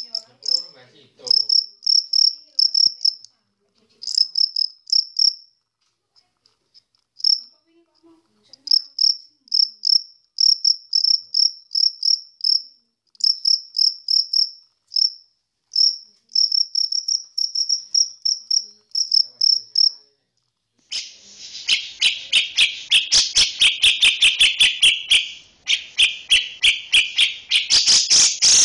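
Cricket chirping in short trains of high, rapid pulses, with brief pauses between them. About twenty seconds in, a louder, harsher insect rasp takes over, pulsing several times a second.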